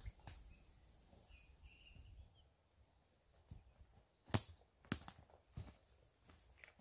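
Quiet woodland with a few sharp clicks and knocks from about four seconds in, as a person moves about over twiggy ground. Faint, short bird chirps come in the first few seconds.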